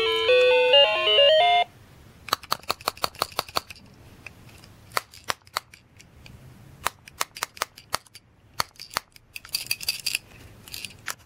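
Tokyo Mew Mew Lettuce castanet toy's sound chip playing a beeping electronic tune that cuts off suddenly about two seconds in. Then the plastic castanet shells are clacked in quick bursts of sharp clicks.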